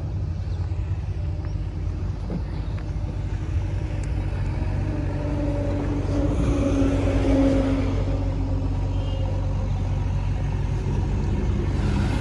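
A heavy vehicle's diesel engine idling steadily. A fainter, higher steady tone joins about five seconds in and fades a few seconds later.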